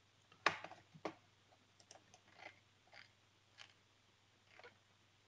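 A few faint, scattered clicks and taps. The loudest comes about half a second in and another near one second in.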